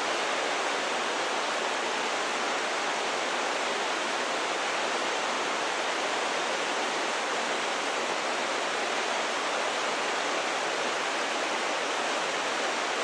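Rushing, crashing canyon river and waterfall water: a steady, unbroken roar of white water.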